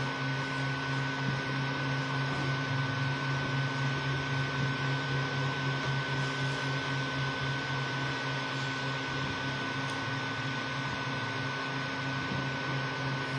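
Creality Ender 3 V2 3D printer running a print: a steady whir of its fans and motors, with a thin, steady high whine over a low hum.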